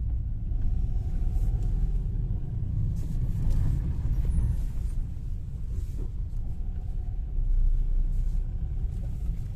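Low, steady rumble of a car heard from inside its cabin: engine and road noise as it drives.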